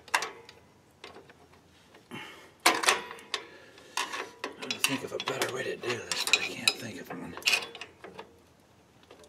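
Metal clinks, clicks and scrapes of a screwdriver prying a drum-brake star adjuster into place between the rear brake shoes, against strong return-spring tension. The clatter starts a couple of seconds in and dies away near the end.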